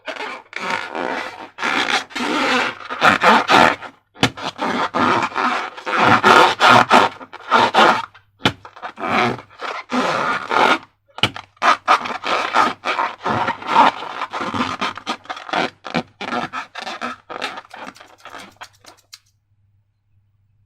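Slime being mixed and squished, a run of wet, sticky squelching and scraping noises in irregular bursts with small clicks, stopping about a second and a half before the end.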